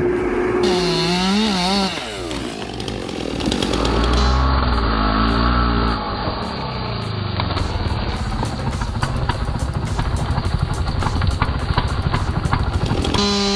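Engines revving up and down in quick succession, changing abruptly several times. In the second half a motor runs under load with rapid crackling, like a chainsaw cutting.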